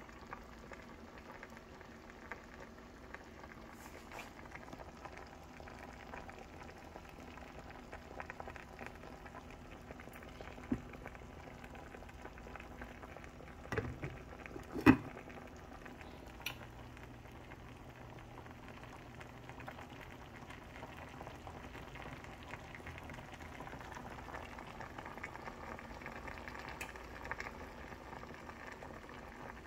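Cabbage cooking in a pot on the stove, a steady low bubbling sizzle. About halfway through, a glass pot lid clanks against the pot twice, about a second apart, the second clank loudest.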